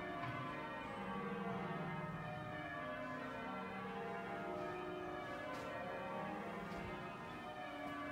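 York Minster's church bells ringing a continuous peal, the strokes of many bells overlapping.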